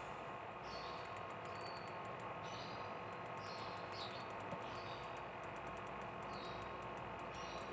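Short high chirps repeating about once a second, with trains of faint high ticks, over a low steady hum.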